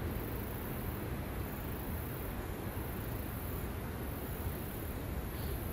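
Steady outdoor ambience: a low rumble with a high insect chirring that pulses on and off above it.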